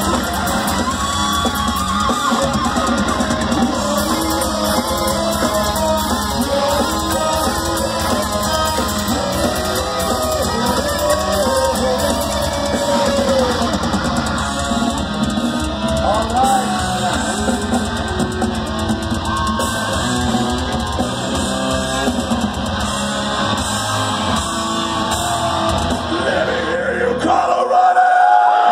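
Thrash metal band playing live, with distorted electric guitars and a drum kit at full volume, heard from within the crowd. The song breaks off a second or two before the end.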